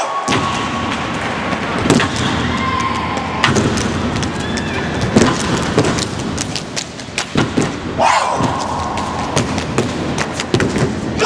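Steppers stomping on the stage floor and clapping and slapping their bodies: a fast run of sharp, percussive impacts.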